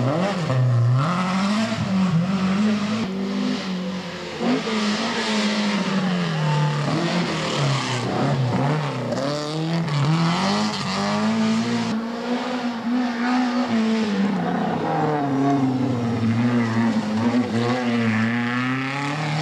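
Rally car engines driven hard through a tight bend one after another. The revs rise and fall repeatedly as each car brakes, changes gear and accelerates away.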